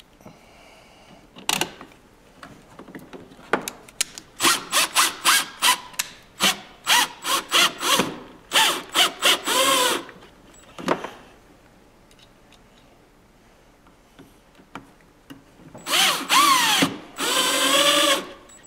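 Milwaukee M18 cordless drill/driver driving Phillips screws into a cover plate. It runs in many short trigger pulses, then in a few longer runs whose motor whine rises and falls with the trigger, with a pause of a few seconds before the last two runs.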